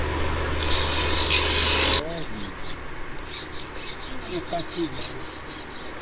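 An electric grinding wheel runs with a steady motor hum and grinding hiss as the knife handle is pressed against it, cut off abruptly about two seconds in. Then a hand file rasps along the edge of the wooden-scaled knife handle in quick, evenly repeated strokes.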